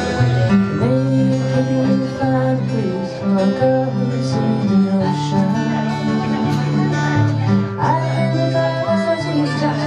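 Harmonica played through a microphone, a lead line of long held notes that bend in pitch, over acoustic guitar strumming.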